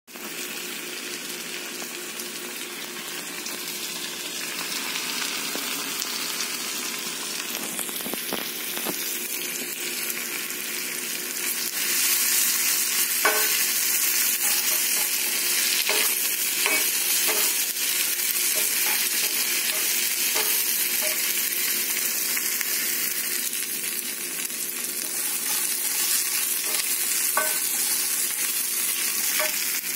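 Sliced red onions sizzling as they fry in a cast-iron skillet, stirred with a wooden spatula. The sizzle grows louder about twelve seconds in, with light taps and scrapes of the spatula against the pan.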